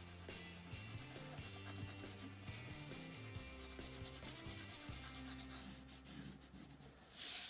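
Quiet rubbing and scratching of pink colour being shaded onto paper, with a louder, brief scratchy stroke near the end.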